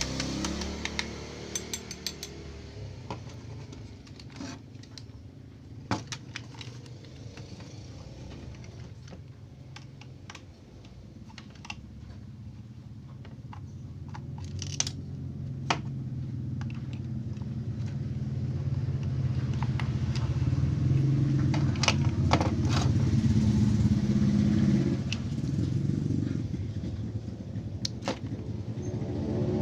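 Remote-control toy bulldozer running: a steady motor-and-gear hum that grows louder for a while, then holds, with scattered sharp clicks and rattles.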